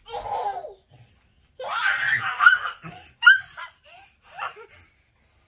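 A toddler girl laughing and squealing in several bursts, with a few sharp high rising shrieks in the middle.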